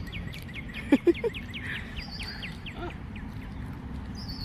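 Birds calling: a quick run of short falling chirps, about four or five a second, and about a second in two or three brief, louder low calls, duck-like.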